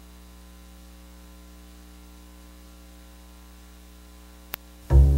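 Steady electrical mains hum. A single click comes about four and a half seconds in, then loud music with a low bass starts just before the end.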